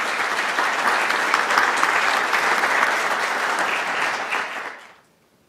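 Audience applauding, a dense patter of clapping that fades out near the end.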